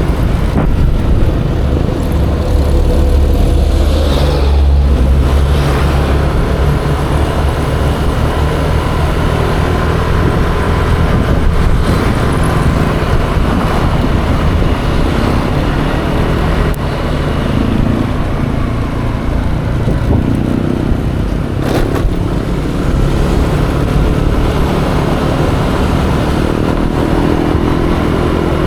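Yamaha Aerox 155 scooter's single-cylinder engine running under way, its note rising and falling with the throttle, over road and traffic noise.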